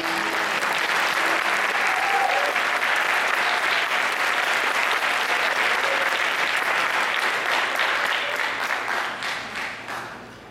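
Audience applauding, holding steady, then dying away near the end.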